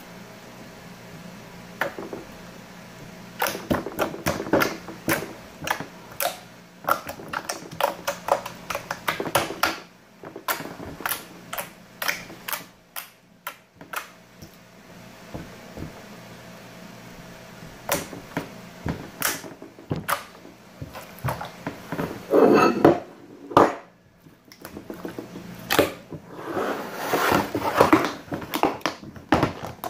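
Slime being poked and pressed with fingertips on a table, giving off irregular sharp clicks and small pops. Near the end, a louder stretch of knocking and scraping as a plastic tub is handled.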